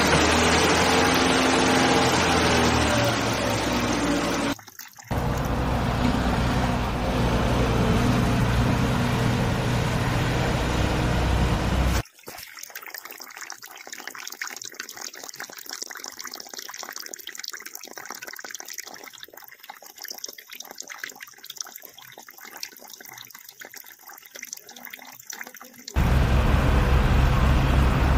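A thin stream of water pouring and splashing onto a foam-covered toy tractor and the sand under it, rinsing off the suds. For about the first twelve seconds, and again near the end, a louder steady sound with held low tones lies over it.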